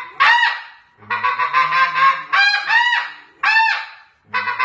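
Ya Ya Calls "Traffic Control" snow goose call blown by mouth: rapid runs of murmuring chatter alternate with four sharp, higher yelping notes, one near the start and three in the middle. It imitates relaxed snow geese on the ground.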